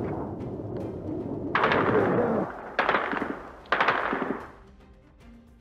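Automatic anti-aircraft gunfire in three bursts of rapid shots, about one and a half, three and four seconds in, over a rushing background noise that fades away near the end.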